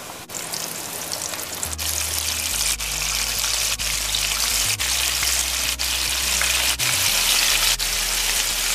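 Flour-battered bangamary fish pieces frying in hot oil in a pan, the oil sizzling hard and bubbling; the sizzle grows louder after a couple of seconds as more pieces are dropped in one after another.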